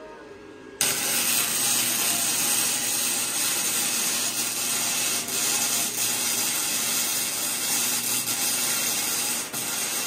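Electric arc welding on a cut steel steering spindle: the arc starts about a second in and runs as one steady, loud crackle, briefly dipping near the end.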